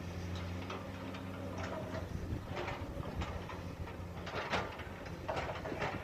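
Komatsu PC200 excavator at work: its diesel engine running steadily, with irregular metallic clanks and knocks, about half a dozen from about two seconds in.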